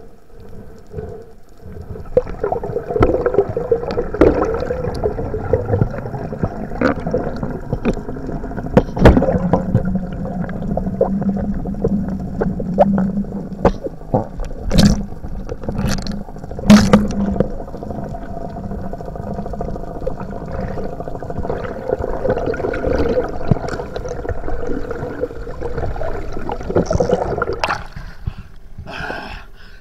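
A boat's outboard motor heard underwater as a steady drone, with water rushing and gurgling past the camera housing and scattered sharp knocks against it. The sound falls away as the camera comes out of the water near the end.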